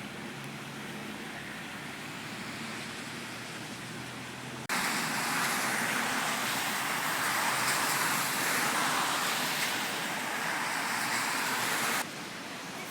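Steady rushing of floodwater, a constant hiss-like noise without distinct events. About four and a half seconds in it jumps abruptly to a much louder, brighter rush, which stops just as abruptly about a second before the end.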